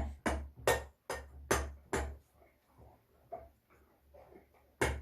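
A run of sharp knocks with a dull thud, about two or three a second, then a stretch of faint small handling sounds, and the knocks start again near the end.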